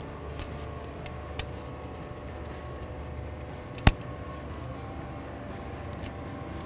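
Light clicks and taps of metal parts as the electric power-steering motor is seated on the steering column and its screws are set in place, with one sharp click about four seconds in. A steady low hum sits underneath.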